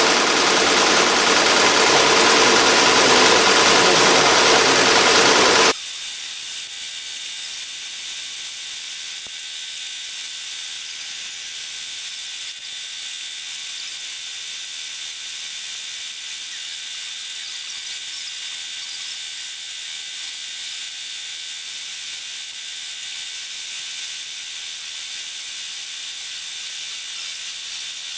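Multi-needle embroidery machine stitching a patch, a loud, dense mechanical running. About six seconds in it cuts off abruptly, leaving a quieter steady hiss with thin high whining tones.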